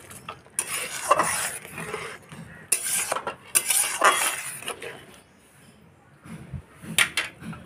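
Metal spatula scraping and stirring through thick egg curry gravy in a metal kadai. It makes several rasping strokes over the first four seconds, then a sharp clink about seven seconds in.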